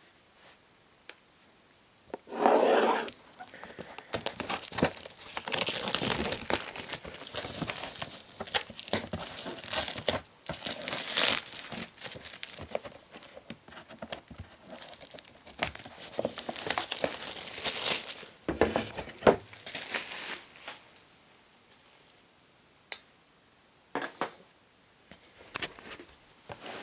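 Plastic shrink wrap torn open and pulled off a cardboard board game box, crackling and crinkling. A sharp tear comes about two seconds in, then a long stretch of crinkling, thinning to a few separate crackles near the end.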